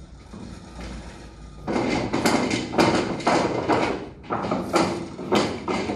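Clamp being fitted around the body of an Amiad Sigma Pro irrigation filter: a quick, irregular run of knocks and clatter that starts after about two seconds.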